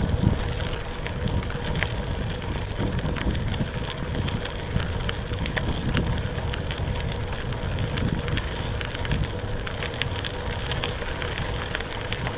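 Bicycle tyres rolling over a packed dirt trail: a steady low rumble with scattered crackles and ticks of grit under the wheels, and wind on the microphone.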